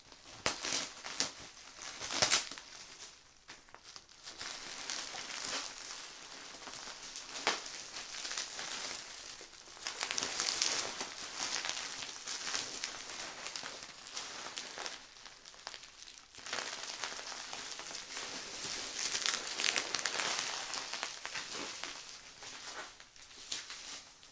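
Packaging crinkling and rustling continuously as it is pulled off and handled, with a few sharp clicks along the way.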